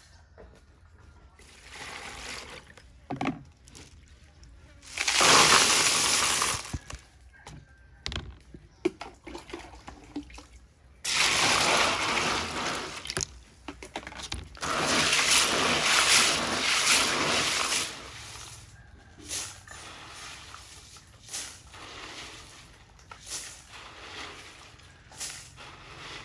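Sea snails being washed by hand in a plastic basin of water: water sloshing and splashing in three long bursts, with scattered clicks between them.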